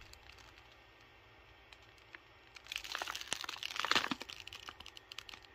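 Packaging crinkling and crackling as it is handled in a shipping box, a dense run of small crackles starting about halfway through after a quiet start.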